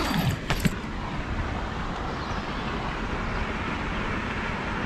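A brief rustle and a few clicks of tent fabric as the tent door is pushed open, then a steady rushing noise.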